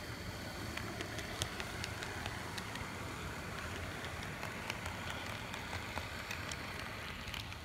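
HO-scale brass model electric locomotive running along the track: a steady low hum from its Canon EN22 can motor driving the worm shafts through spring belts, with scattered light clicks.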